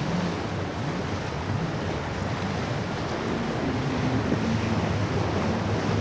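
Inboard engines of a convertible sportfishing yacht running with a steady low drone as it pushes through choppy inlet water. Surf and bow-wave wash sound throughout, with wind buffeting the microphone.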